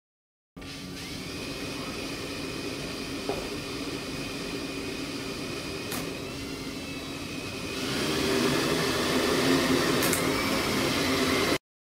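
Quadcopter's electric motors spinning 9-inch deformable propellers: a steady whine and hum starting about half a second in, which grows louder about eight seconds in. Brief sharp clicks come a few times as a fist is pushed into a spinning blade.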